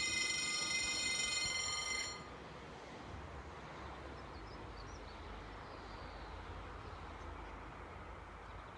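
Level-crossing warning bell ringing steadily, then cutting off suddenly about two seconds in, leaving only a faint low rumble.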